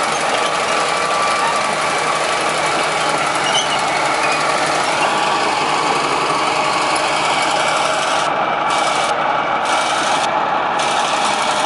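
Heavy construction machinery engine running steadily under load.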